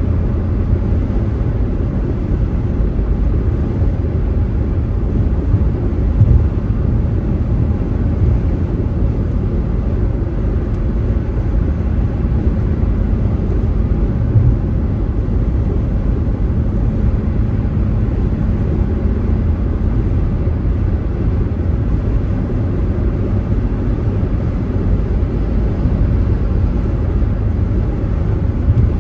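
Steady low rumble of a car being driven, road and engine noise with no sharp events.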